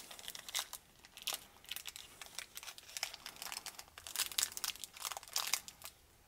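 Plastic wrapper of a salami snack stick crinkling in the fingers as it is picked at and torn open: a run of irregular crackles that dies away near the end.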